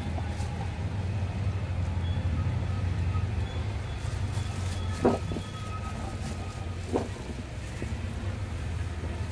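Steady low rumble of street traffic, with two short knocks about five and seven seconds in.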